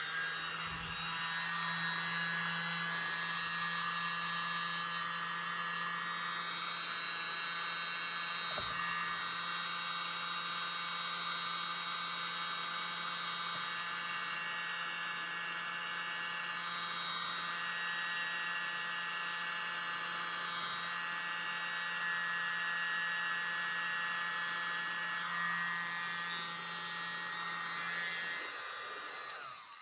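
Small handheld electric mini blower running steadily, a low hum with a higher whine over it, blowing a puddle of acrylic paint outward into a bloom; it switches off near the end.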